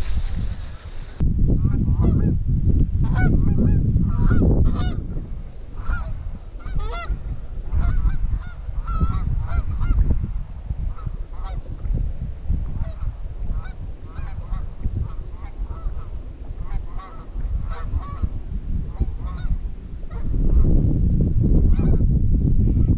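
Canada geese honking, many short calls overlapping at different pitches, thinning out in the second half. Under them runs a low rumble of wind on the microphone, strongest near the start and again near the end.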